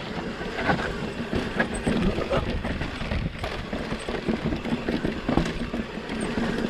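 Norco Range VLT electric mountain bike riding over a rocky trail section: tyres rolling over rock with many irregular knocks and rattles, over a steady low rumble.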